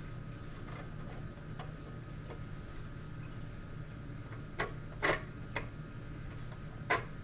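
Small hard clicks and taps as a plastic insert is handled and pressed into place around the blade of a diamond band saw: faint ticks at first, then four sharper clicks in the second half, over a steady low hum.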